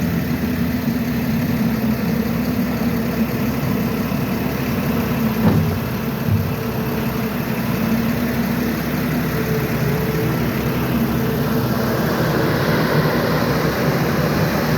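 Diesel engine running steadily, with a short knock about five and a half seconds in.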